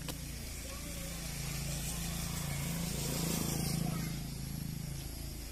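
A distant engine hums steadily, growing louder about three to four seconds in and then fading again, over a faint outdoor hiss.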